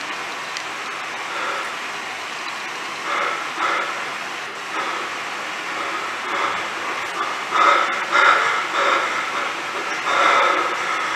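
Performance soundtrack of steady hissing noise, with louder, rougher rushing swells about three seconds in, around eight seconds in, and again near the end.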